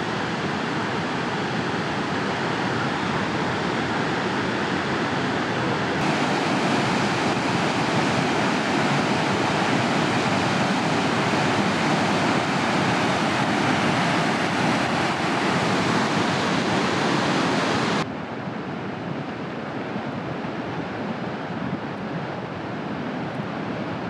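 Waterfall: steady loud rushing of falling water, stepping up a little about six seconds in and dropping abruptly about eighteen seconds in.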